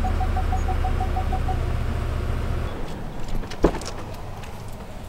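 Pickup truck engine idling while an electronic warning chime beeps rapidly. The chime stops about a second and a half in and the engine hum dies away a little later. A sharp clack comes about three and a half seconds in.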